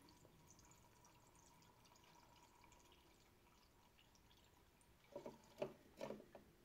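Very faint trickle of engine flush additive pouring from a can into an engine's oil filler neck. A few brief, louder sounds come near the end.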